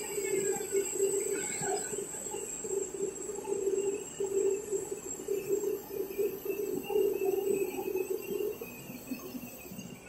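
IECHO TK3S flatbed cutter's router module milling through plastic film: a steady high whine over a pulsing lower hum. The hum dies away near the end.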